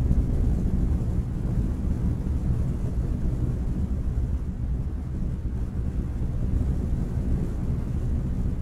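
Steady low rumble of wind buffeting a microphone mounted on the outside of a moving car, mixed with road noise from the car.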